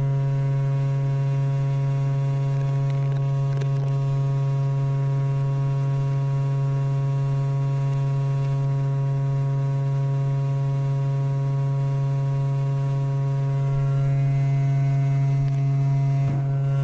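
Steady low-pitched electrical hum with a stack of higher overtones, constant in pitch and level, with a couple of faint ticks.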